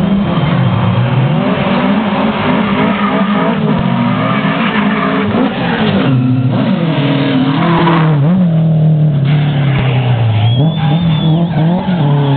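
Rally car engine revving hard on a straight, its pitch climbing and dropping again and again with the gear changes as the car approaches and passes. A brief high squeal comes near the end.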